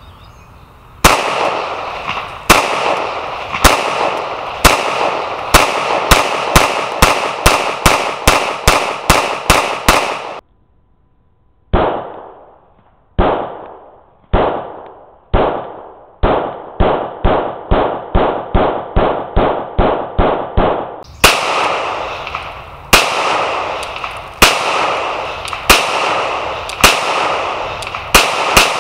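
Glock 19 Gen 4 MOS 9mm pistol firing strings of shots, some single shots about a second apart and others in quick succession at about two a second. For about ten seconds in the middle the shots come through a small point-of-view camera and sound duller, with the top end cut off.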